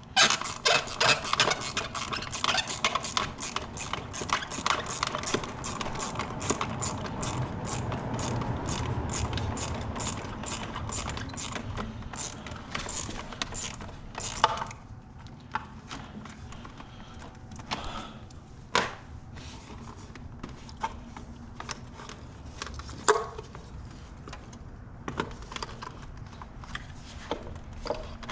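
Hand work on car intake parts: a fast run of clicks and small knocks, several a second, like a ratchet or tool working a fastener and parts being handled. About halfway through it thins out to occasional single knocks and clunks.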